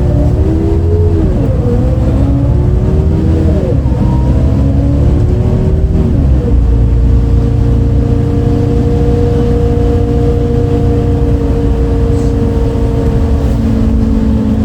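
MAN D0836 inline-six diesel of a 2008 MAN Lion's City A37 bus, heard from inside, pulling away as the ZF Ecomat automatic gearbox shifts up three times in the first six seconds, the engine note rising and dropping with each shift. It then runs at steady revs. The engine had an unusual note on this day.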